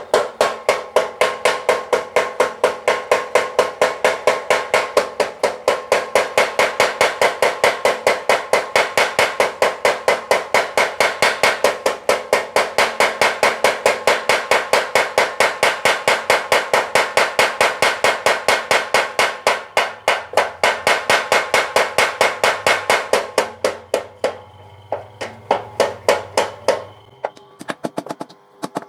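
Blacksmith's mechanical power hammer forging steel, with rapid, steady blows of about five a second and a metallic ring. About 24 seconds in the blows become sparse and uneven, then stop near the end.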